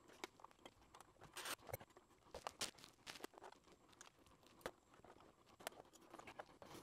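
Faint, irregular clicks, taps and light scrapes of a disassembled Canon EF 100-400mm lens barrel being turned and worked in the hands, with a brief scrape about a second and a half in.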